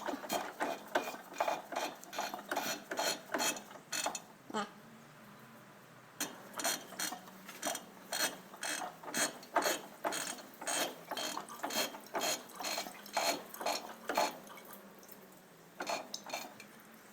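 Hand tools working on the MTZ-52 tractor's metal engine parts: a run of sharp metallic clicks, about two a second, with a pause about five seconds in.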